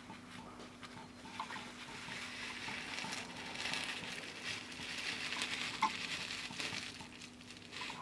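Many small neodymium magnetic balls clicking and rattling against each other as a sheet of them is handled and pressed into place: a dense fine crackle with a few sharper clicks. A faint steady hum lies underneath.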